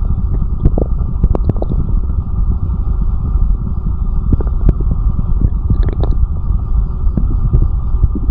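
Stomach growling heard close up: a steady low rumble with irregular gurgles and pops of gas and fluid moving through the gut.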